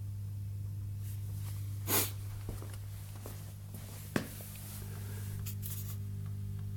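Omega ODW707WB dishwasher's pump running as a steady low rumbling hum, the pump straining as it tries to work. A short noisy burst about two seconds in and a sharp click about four seconds in.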